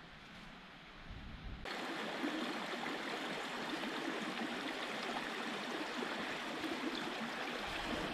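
Small brook babbling and rushing through open gaps in its snow cover, a steady sound of running water that cuts in abruptly about a second and a half in, after a faint hiss of wind.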